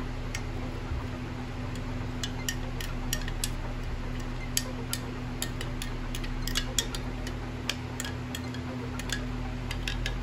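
Metal spoon clinking irregularly against the inside of a glass jar while stirring stump remover and sulfuric-acid drain opener together, over a steady low hum.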